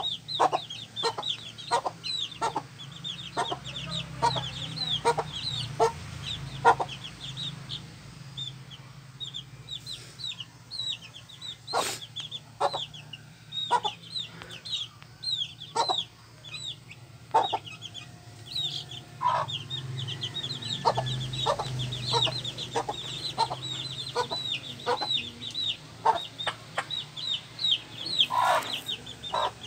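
A flock of young chicks peeping continuously in quick, high, falling notes, over a steady run of short, lower clucks from a hen.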